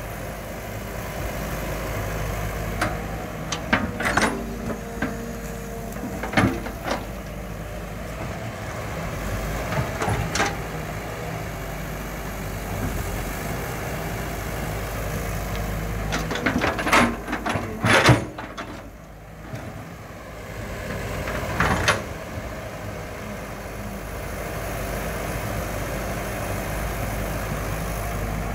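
Caterpillar E120B hydraulic excavator's engine running steadily as it digs, with sharp knocks from the bucket and arm every few seconds. A cluster of knocks comes about two-thirds of the way through, and the engine sound dips briefly just after.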